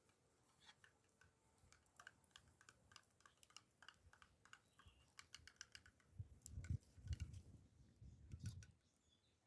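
Faint light clicks and taps in quick runs of about four or five a second, then several soft low thumps near the end, the loudest sounds here.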